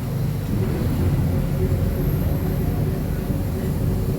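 Diesel engine of a Marcopolo Sênior Midi bus on an Agrale MA 15.0 chassis running at a steady, low hum.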